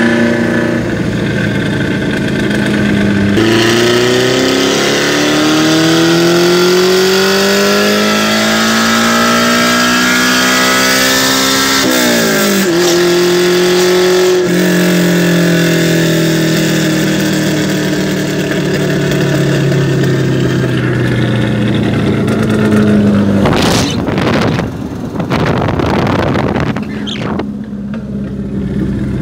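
Loud exhaust of a Toyota Corolla KE35 heard from inside the cabin on the move. The engine revs up steadily, drops and picks up again at a gear change about twelve seconds in, holds, then winds down slowly as the car slows. A few sharp cracks come near the end.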